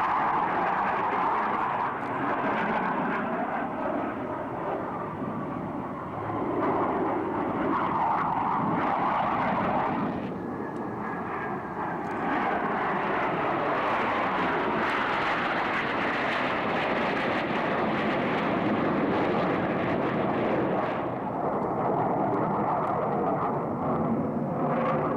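Jet noise from Blue Angels F/A-18 Hornets' twin turbofan engines flying a demonstration, a steady rush that swells and fades several times as the jets pass, with a faint falling whine about ten seconds in.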